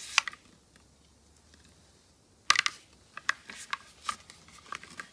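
Clicks and clacks from handling a gas airsoft M14 rifle. One click comes right at the start, then a sharp double clack about two and a half seconds in, followed by a run of smaller clicks and rattles.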